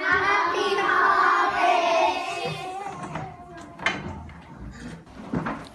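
A group of children's voices sounding together, loud for about three seconds, then dying away into a few light knocks and brief scattered voices.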